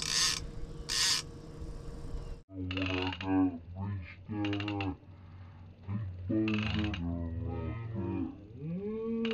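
A fishing reel's ratchet clicking in two short bursts as line is pulled out, in the first second. After a sudden cut, low drawn-out sounds whose pitch slides up and down take over.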